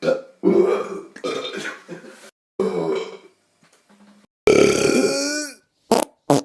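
Loud burping, several belches one after another. The longest and loudest, a little past halfway, falls in pitch as it dies away. Two short, abruptly cut bursts follow near the end.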